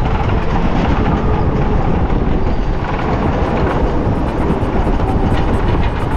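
Electric go-kart running on the track: a loud, steady noise, heaviest in the low end, with no engine note.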